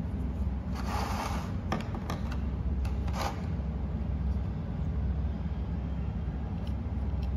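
Plastic toy food pieces handled over a clear plastic blister tray: two short crinkling rustles, about a second in and again after three seconds, and a few light clicks as pieces are set down and picked up, over a steady low hum.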